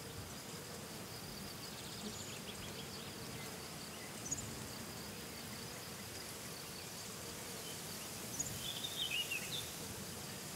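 Faint meadow ambience: a steady insect buzz, with a few short bird chirps and a brief bird call about nine seconds in.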